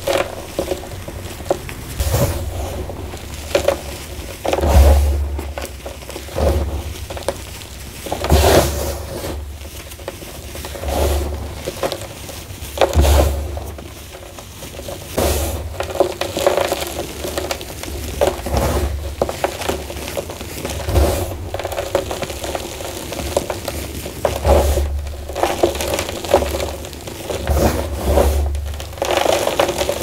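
Dehydrated gym chalk, soaked with dishwasher tablets and dried, crushed and crumbled between bare hands: soft crunches and powdery crumbling, one squeeze every second or two, many with a dull low thud under them.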